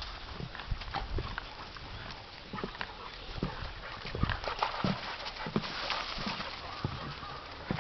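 Irregular footsteps crunching and knocking on dry leaves and twigs of a forest trail, with English setters moving through the leaf litter.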